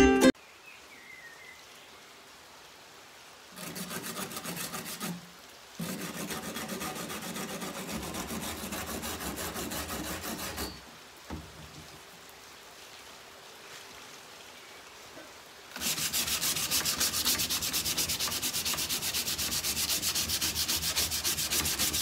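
Sandpaper rubbed by hand over a varnished, carved wooden cabinet panel to strip the varnish. It comes in stretches of scratchy rubbing with quieter gaps between them, and the loudest, longest stretch starts about two-thirds of the way through.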